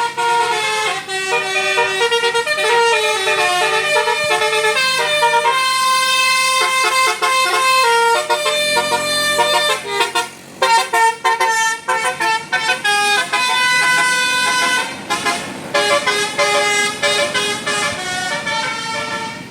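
Bus 'telolet basuri' melody horn playing a tune, its notes stepping quickly up and down, briefly breaking off a few times about halfway through.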